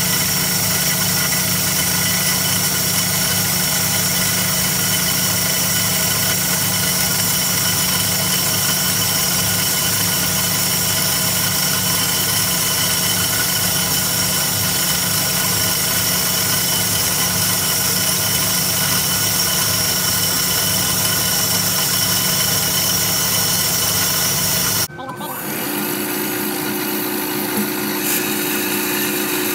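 Band saw running as its blade cuts slowly through a golf ball clamped in its vise: a steady machine hum with a regular low throb. About 25 seconds in the sound changes abruptly to a slightly quieter, steady hum with a higher tone.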